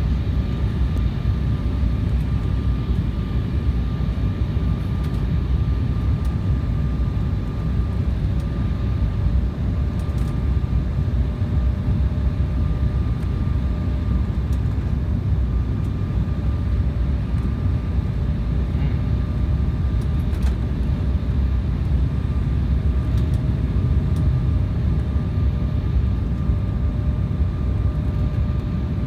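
Airliner cabin noise in flight: a steady low rumble of engines and airflow, with a faint steady whine over it.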